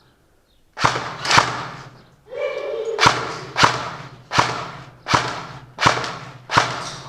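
Airsoft gun firing about eight single shots, a little under a second apart, each sharp crack echoing off hard walls.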